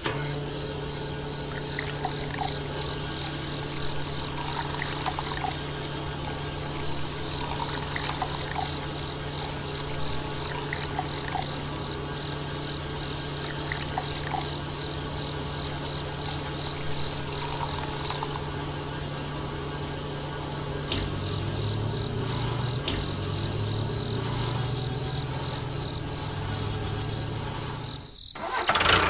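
Water pouring steadily over a continuous low hum from a small motor, both cutting off suddenly near the end.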